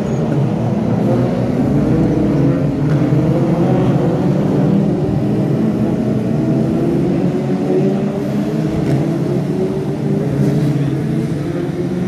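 Several Brisca F2 stock car engines running as a pack circles the oval, their overlapping engine notes rising and falling in pitch.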